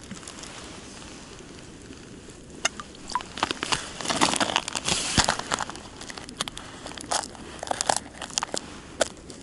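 Packaging handled by hand: a plastic bag crinkling and a cardboard box being opened, a run of sharp crackles and rustles that is densest and loudest about halfway through, then scattered crackles.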